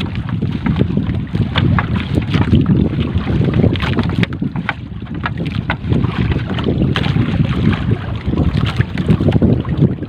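Wind buffeting the microphone over water washing against an outrigger boat's hull, with frequent small clicks and rustles as a wet fishing net is hauled in over the side.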